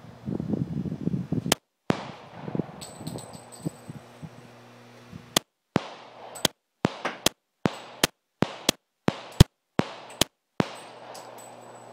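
Glock 22 Gen 4 pistol firing .40 S&W full-metal-jacket rounds: one sharp shot, then after a pause of a few seconds a quick string of shots, two or three a second.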